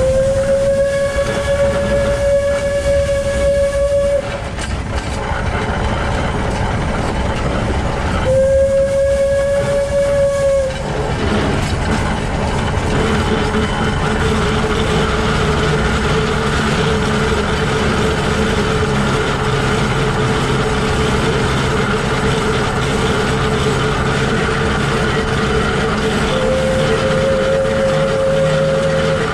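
Shay geared steam locomotive SL-31 running, its bevel gears and running gear clattering, with three steady steam-whistle blasts: a long one at the start, a shorter one about eight seconds in, and another near the end.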